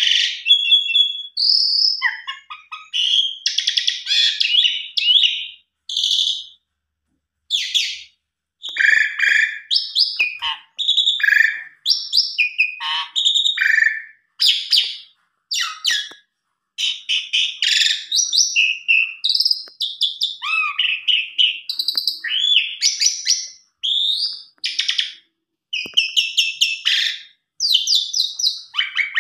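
Javan pied myna (jalak suren) singing: a long, varied string of short whistled and chattering phrases, with one pause of about two seconds early on.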